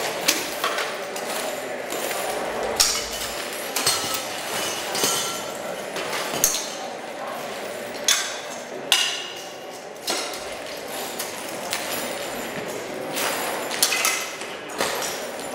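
Scrap-metal pieces and nails clanking and scraping as they are handled and snapped onto a magnet-covered body, building up a metal armour. Irregular sharp metallic clanks ring out every second or so over a continuous rattle of metal on metal.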